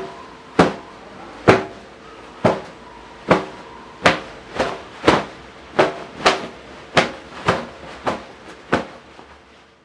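A pair of trousers or other garment jerked taut by hand again and again, the fabric giving a sharp snap about fourteen times, roughly one every half second to second: a foley cloth sound meant to reinforce a punch.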